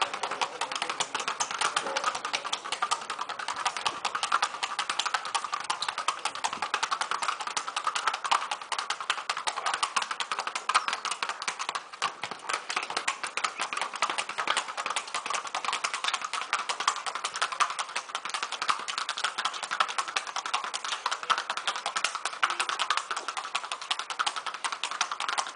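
A Colombian Paso Fino horse's shod hooves striking paving tiles in a rapid, even stream of sharp clicks as it is ridden at its gait.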